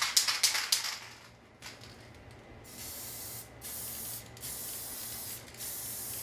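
Aerosol spray-paint can spraying onto a canvas in several long hisses separated by brief breaks, after a flurry of short sharp sounds in the first second.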